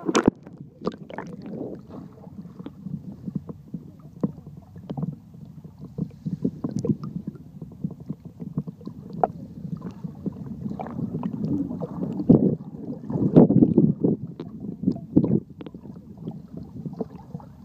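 Water heard from inside a waterproof phone case held just under the surface: a muffled low sloshing and gurgling with irregular clicks and knocks, opening with a sharp splash as the phone goes under, and swelling louder twice near the end.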